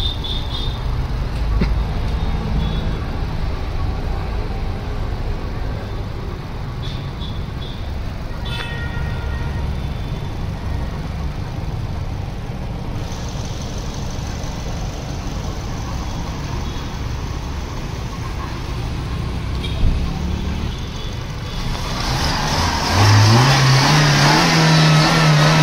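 Maruti Ertiga four-cylinder petrol engine, breathing through an open cone air filter, idling steadily; about 23 seconds in the revs rise and are held at a steady higher pitch.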